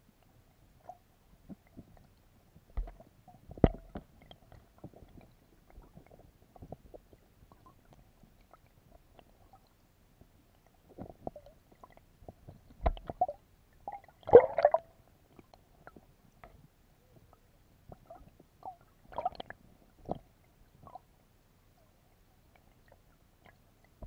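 Water sound picked up by a submerged camera: scattered gurgles and sharp knocks, with the loudest burst about 14 seconds in and smaller clusters near 4, 13 and 19 seconds.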